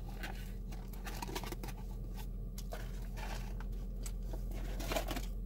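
Eating sounds: faint crunching, chewing and rustling of fast-food packaging as small scattered clicks, over a steady low hum.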